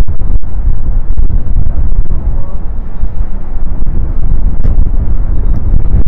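Strong gale-force sea wind buffeting the microphone: a loud, low, steady rush that swells and dips with the gusts.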